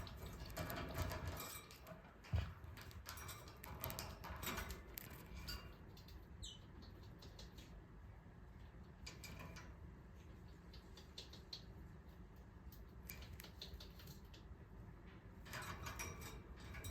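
Jumbo budgerigar making small clicks and rustles, with one short falling chirp about six seconds in.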